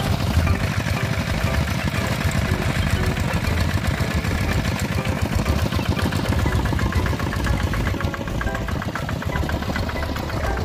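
Single-cylinder diesel engine of a two-wheel hand tractor running steadily with a rapid, even firing beat as the tractor drives along on its iron cage wheels.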